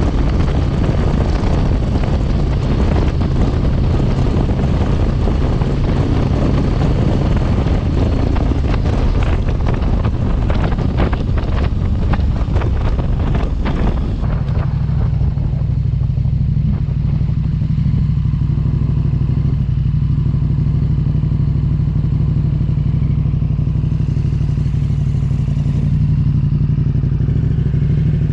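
A motor vehicle's engine running steadily at a constant pitch. For the first half a rough hiss with some clattering lies over it; about halfway through this drops away, leaving the engine running alone.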